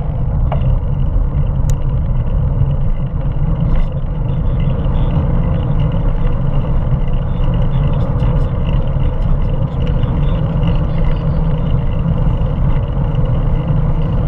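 Steady low rumble of wind buffeting a bicycle-mounted camera's microphone, mixed with tyre and road noise while riding along a street.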